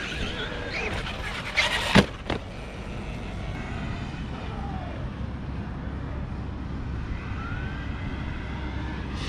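Electric motor of a Traxxas RC truck whining up and down as it drives over wet concrete, with a loud clatter and a hard impact as the truck lands about two seconds in. After that the motor whine comes and goes faintly over a steady low rumble.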